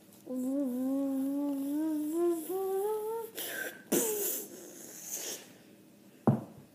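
A boy humming one long note that slowly climbs in pitch for about three seconds, followed by a couple of short breathy, whooshing noises. Near the end there is a single sharp thump.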